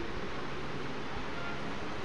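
Steady, even hiss of background room noise, with no distinct clinks from the clay pieces.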